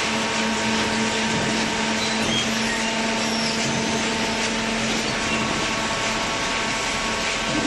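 Hydraulic cardboard baler running: a steady machine hum and hiss with a constant low tone.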